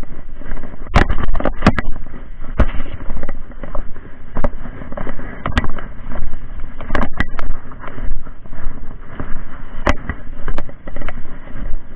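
Tall dry grass and clothing brushing and rustling against a body-worn camera as someone wades through it on foot, with sharp knocks and crackles every second or so from stems and handling hitting the camera.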